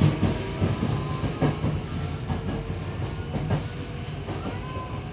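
Yokohama Municipal Subway 3000S train car heard from inside while running: a steady rumble with the wheels knocking over rail joints, often in quick pairs. A short rising whine comes in near the end.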